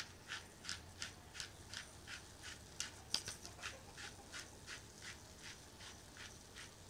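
Hand-twisted pepper mill grinding peppercorns: a faint, regular crunching click about three times a second as the top is turned back and forth.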